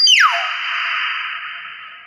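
Common hill myna calling: a sharp falling whistle that runs straight into a steady rasping hiss, fading away over about a second and a half.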